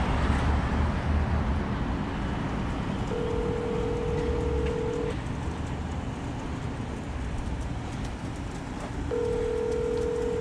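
North American telephone ringback tone: two rings, each about two seconds long and four seconds apart, over a steady outdoor background rumble. The call is ringing and not yet answered.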